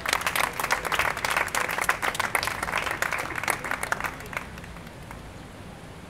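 Small audience applauding at the end of a sung bertso verse, the clapping dying away about four and a half seconds in.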